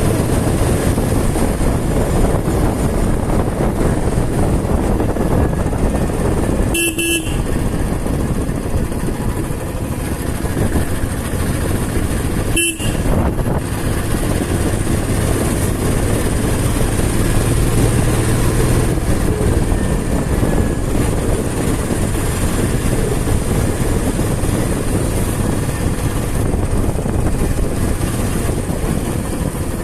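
Motorcycle riding along at a steady pace: engine running under a dense rush of road and wind noise. Two brief tonal blips cut through, about seven and thirteen seconds in.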